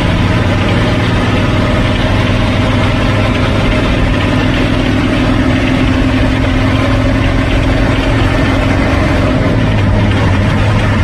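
A coach's diesel engine heard from inside its cab, running steadily at highway speed over road noise. A higher engine tone comes in about four seconds in and drops away shortly before the end, as the coach pulls alongside the bus ahead.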